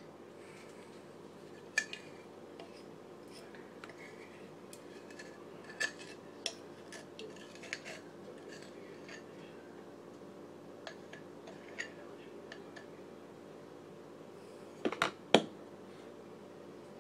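Light, scattered clicks and taps of utensils against kitchenware, with two sharper knocks about fifteen seconds in, over a steady low hum.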